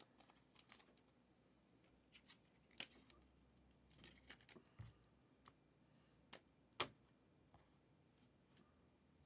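Quiet handling of football trading cards: faint rustling and a few sharp little clicks, the loudest about two-thirds of the way through.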